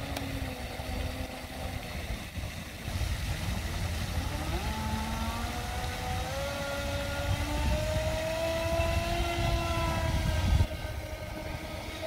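Radio-controlled speed boat's motor whining across the pond. Its pitch sweeps up about four seconds in as the boat speeds up, then holds high. Wind rumbles on the microphone throughout.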